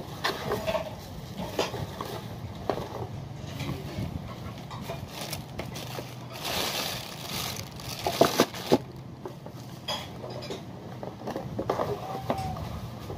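Unboxing handling: a bubble-wrap plastic bag crinkling and cardboard box flaps and small parts being moved and set on a wooden table, with scattered knocks and a cluster of sharp clicks a little past the middle.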